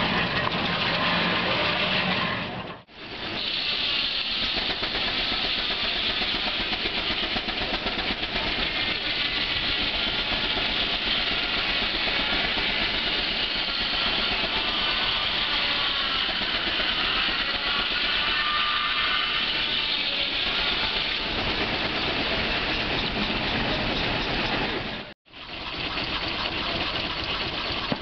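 Case steam traction engine running while belted to a sawmill, with a steady loud hiss of steam. The sound breaks off briefly twice.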